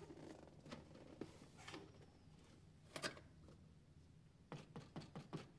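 Faint scattered clicks and taps of small hard objects being handled, with one sharper click about three seconds in and a quick run of several near the end.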